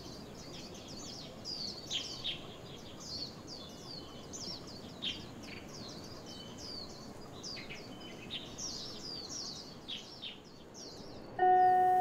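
Many small birds chirping and twittering in quick, repeated downward-sweeping notes over a steady soft hiss of forest ambience. Near the end, chime-like mallet-percussion music notes come in.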